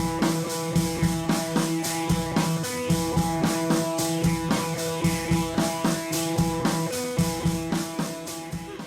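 Background music: an upbeat track with guitar and drums over a steady beat, fading down near the end.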